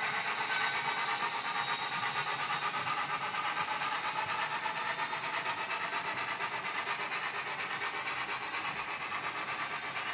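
HO-scale model train running along the layout track: a steady rolling rush with a fast, even flutter, slowly easing in level.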